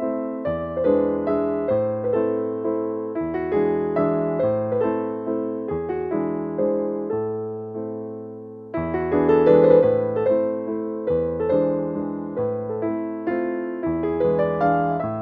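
Background piano music: a gentle melody of struck, decaying notes in a steady rhythm, one phrase fading a little past halfway and a new one starting about nine seconds in.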